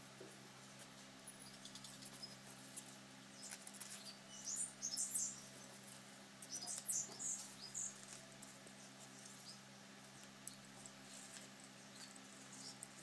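Taro leaf stalks being cut on a boti blade: faint crisp snapping and crunching, in a cluster about four to five seconds in and another around seven seconds, over a steady low hum.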